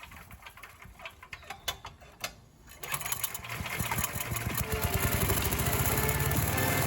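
A few light clicks, then about three seconds in the chipper shredder's 8 hp Tecumseh single-cylinder engine starts and runs up to speed, its rapid firing pulses growing steadily louder.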